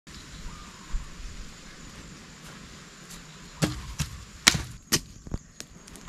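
A run of about six sharp knocks or chops in the second half, a fraction of a second apart, over a faint steady high tone.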